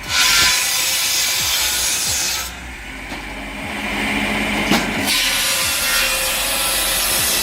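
Power saw cutting through log wood on a combined saw-and-splitter machine: a loud rasping cut for about two and a half seconds, a quieter spell with the machine running underneath, then a second cut from about five seconds in.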